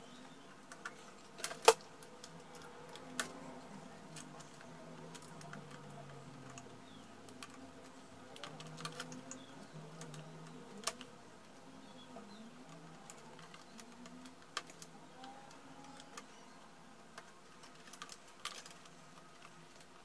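Scattered clicks and taps from gloved hands handling the plastic and sheet-metal parts of a disassembled HP LaserJet Pro laser printer. One sharp click about two seconds in is the loudest, with a few lighter ones spread through the rest.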